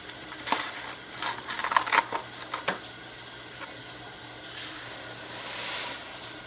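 Uncooked rice poured from its box into a pot: a run of small clicks and rattles in the first half, then a soft hiss of grains pouring that swells and fades near the end.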